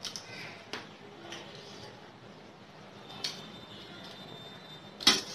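Eating with the fingers from a steel plate: quiet chewing and mouth sounds with a few short, sharp clinks, the loudest one near the end.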